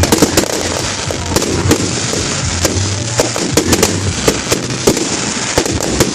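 Fireworks going off in quick succession: a dense string of sharp bangs and crackles, several a second.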